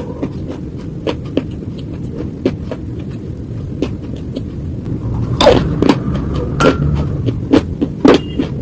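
Close-up crunching of slate being bitten and chewed: a run of sharp, irregular crunches over a low mouth rumble, with a cluster of louder crunches about five to seven seconds in.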